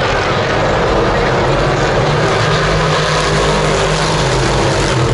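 Race car engines running on the circuit: a loud, steady engine drone whose pitch drifts slowly, with crowd noise behind it.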